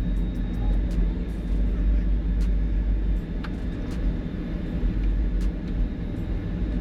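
Two FI Audio subwoofers, driven by four Taramps Smart 5 amplifiers, playing loud, deep bass that booms steadily.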